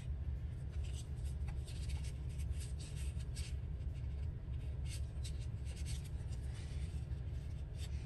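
Paper scraps being handled and rubbed: soft, irregular rustles and scratchy strokes, over a steady low hum.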